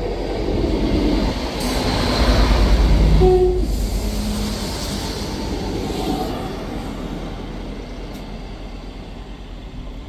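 Great Western Railway diesel multiple unit passing the platform, a rumble and wheel noise on the rails that builds to its loudest about three seconds in and then fades as the train runs away. A brief steady note sounds at the peak.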